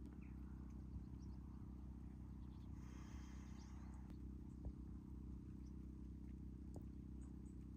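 A steady low mechanical hum made of several even tones, with faint chirps above it.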